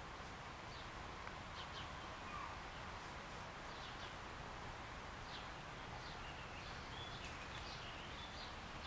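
Faint woodland ambience: a steady low background hiss with short, high bird chirps every second or so.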